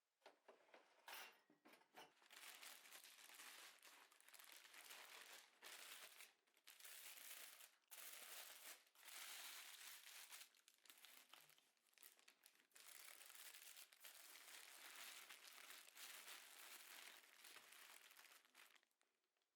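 Crinkling of plastic or paper packaging as it is handled, in irregular bursts.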